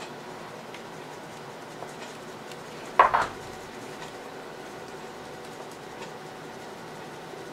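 Dry rub shaken from a spice shaker bottle over a rack of pork ribs on a metal baking sheet: a faint patter of grains, broken about three seconds in by a sharp double clack.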